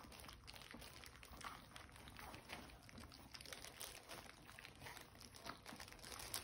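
Faint, irregular wet lapping and smacking of several French bulldog puppies eating mush from a plastic feeder bowl, a steady scatter of small clicks.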